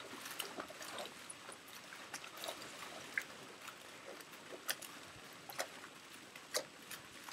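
Swimming-pool water splashing and sloshing as a surfboard skids across it and a boy lands and wades in the water, with a few sharp slaps in the second half.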